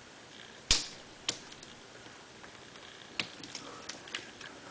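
Plastic fischertechnik construction parts clicking and knocking as they are handled and slid into place: a sharp click about a second in, then a few more scattered clicks and light ticks.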